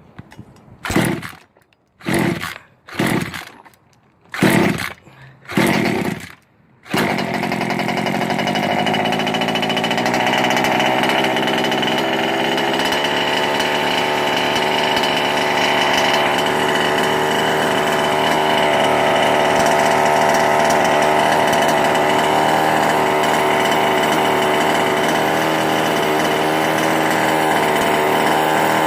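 Small two-stroke gas engine of a 1/5-scale RC car being pull-started after its flooding was cleared: five quick pulls of the recoil starter, each a short burst, and about seven seconds in the engine catches and runs on steadily.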